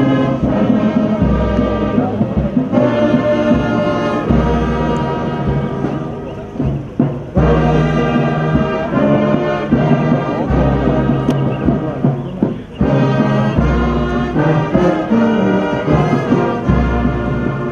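Brass band music: long held chords, with a deep bass note sounding about every three seconds.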